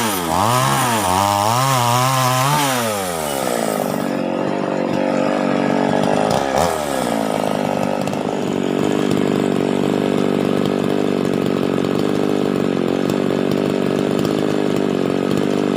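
Two-stroke chainsaw engine revved up and down several times in quick succession, then dropping back to a steady idle about three seconds in. There is one short blip of the throttle a few seconds later, and it keeps idling evenly after that.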